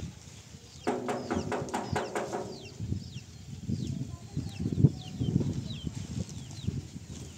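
Small birds chirping in many short, quick falling notes. About a second in, a farm animal gives one pulsing call lasting about a second and a half, and low knocks and shuffling sounds come and go.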